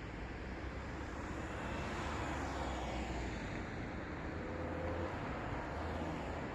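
Road traffic: a continuous hiss of passing cars, with one vehicle swelling past in the middle, its sound sliding down in pitch as it goes by.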